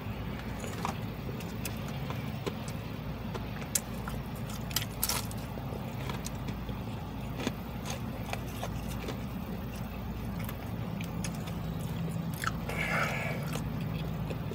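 Someone chewing fried chicken strips, with scattered small clicks and rustles from a paper wrapper and a dipping-sauce cup being handled. Underneath is a steady low hum of a car cabin.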